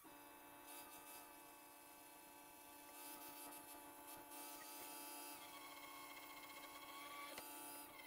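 Electric angle grinder grinding 2-inch square steel tubing, heard only faintly as a steady whine whose pitch wavers slightly under load.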